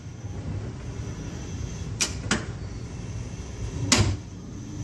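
Gas stove burner being lit: two sharp igniter clicks about two seconds in, then a louder click with a soft low thump near the end as the burner catches.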